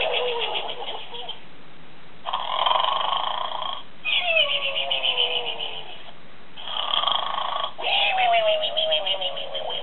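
Toy pig that snores when its paw is pressed, playing a cartoon snore over and over: a rasping in-breath, then a whistle sliding down in pitch on the out-breath. The cycle repeats about every four seconds, three times here.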